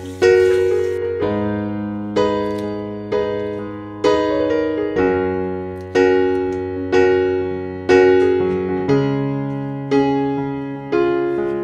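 Slow piano music: chords struck about once a second, each ringing and fading before the next.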